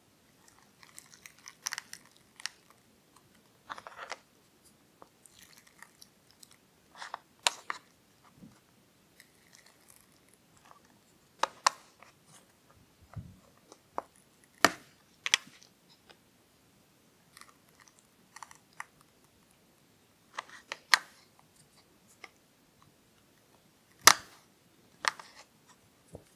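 Screwdriver prying apart a 3D-printed plastic tire mold that was cast without mold release, with the cured silicone tire inside. A dozen or so sharp clicks, cracks and snaps come at irregular moments as the mold and silicone are forced apart, with faint scraping between them; the loudest snap comes about 24 seconds in.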